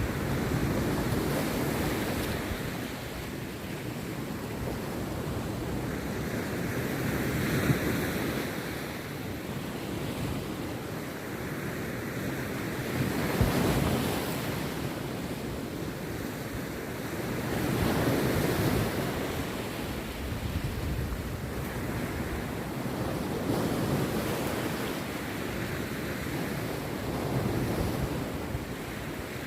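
Rough sea surf breaking on a beach, with waves crashing and washing in one after another every few seconds.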